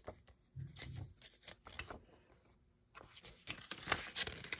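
Faint handling of a CD jewel case and its paper booklet: scattered light clicks of plastic and rustling of paper as the booklet is taken out and leafed through, quiet for a moment just past the middle.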